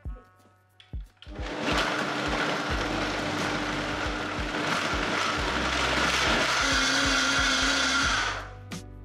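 High-speed countertop blender starting about a second in and running for about seven seconds, puréeing a vegetable soup of pea pods, onion and potato. Its hum drops a little in pitch about two-thirds of the way through, and it stops near the end.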